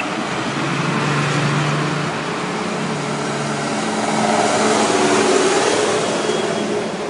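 Farm tractors' diesel engines running as two tractors drive past one after the other, the engine sound swelling as each goes by.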